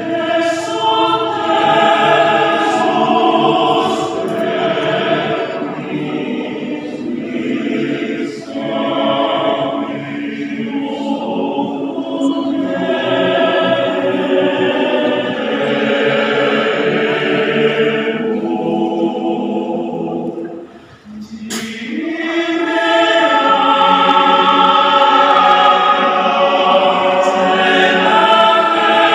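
Male choir singing a cappella. The singing breaks off briefly about two-thirds of the way through, then comes back in louder.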